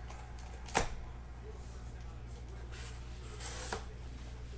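Cardboard case being opened by hand: a sharp knock about a second in, then cardboard flaps scraping and rustling twice around three seconds in. A steady low hum runs underneath.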